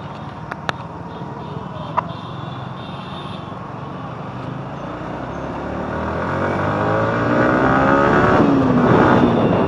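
Street traffic rumble with a few sharp clicks early on. In the last few seconds a vehicle engine revs up, rising in pitch and getting louder, then its pitch drops.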